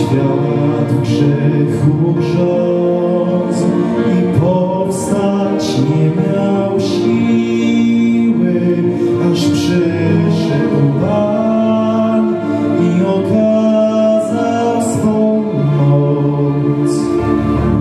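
Young man singing a Polish Christmas carol into a handheld microphone, holding long notes, over music accompaniment.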